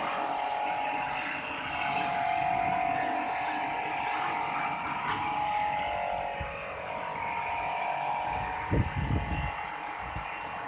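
A small electric motor running with a steady hum whose pitch shifts a little, and a brief cluster of low thumps about nine seconds in.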